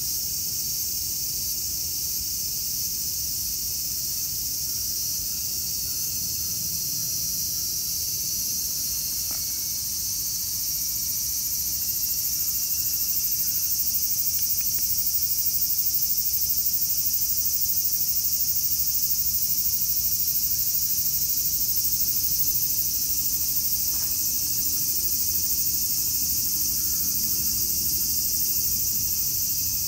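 Steady, high-pitched chorus of insects shrilling continuously, the dominant sound throughout, with a couple of faint clicks in the foreground.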